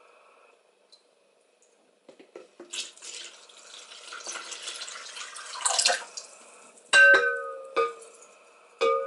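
Iron-water mordant poured from a glass jar into a plastic bucket of liquid, a splashing stream for about three seconds that builds and then tails off. Then three sharp, ringing glass clinks as the jar knocks against the glassware.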